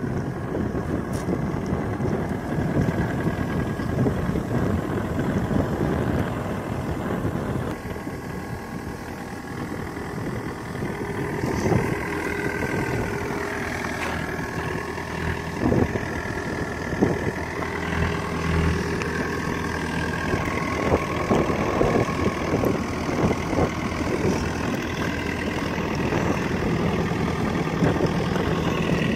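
Komatsu PC50MR-2 midi excavator's diesel engine idling steadily.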